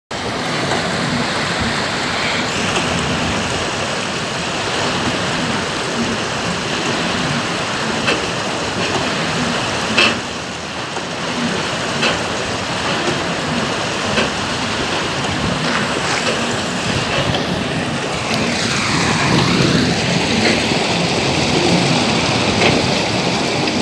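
Fast-flowing water rushing and churning around the hull of a 1/6-scale model barge, a steady splashing rush. Light clicks come about every two seconds.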